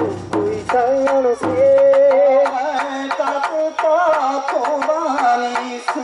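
Bon-odori ondo singing through a microphone, with long wavering notes, over a large barrel taiko drum beaten with wooden sticks in a steady rhythm of sharp strokes.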